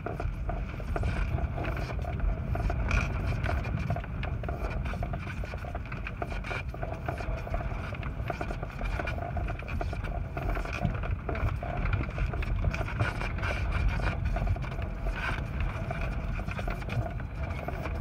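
Gusty wind buffeting a light airplane, heard from inside its cabin: a low rumble that swells and eases with the gusts, with small rattles and knocks from the airframe shaking.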